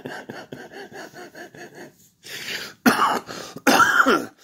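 A man coughing and clearing his throat: soft, quick pulses for about two seconds, then three harsh, loud hacks in the second half as he works to bring up phlegm.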